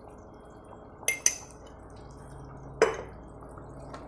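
Chicken curry gravy simmering in a pan, a low steady bubbling broken by a few sharp pops: two about a second in and a louder one near three seconds.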